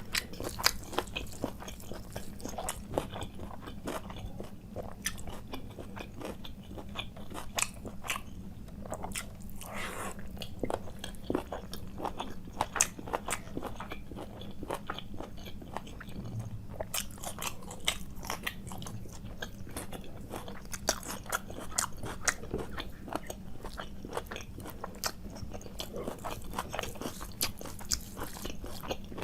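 A person chewing and biting food close to the microphone: a steady run of irregular sharp clicks, smacks and crunches.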